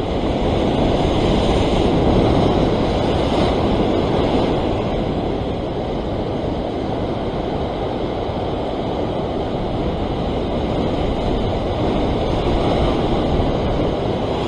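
Heavy ocean surf breaking and washing over a rock ledge: a steady rush of white water that swells louder in the first few seconds.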